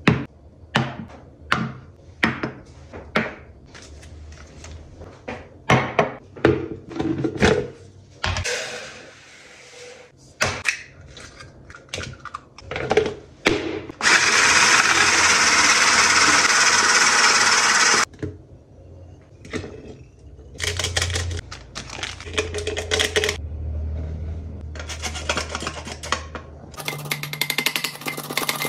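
Kitchen utensil sounds: knocks and clinks of bowls, jugs and lids. About halfway in, a small electric mixer runs steadily for around four seconds to beat eggs and sugar in a lidded jug. Later comes the rapid ticking of a hand-cranked metal flour sifter being turned over the batter bowl.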